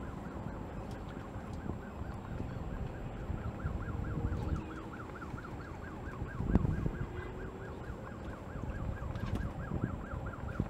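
An emergency-vehicle siren yelping, its pitch rising and falling about four to five times a second, over a steady low rumble. There is a single thump about six and a half seconds in.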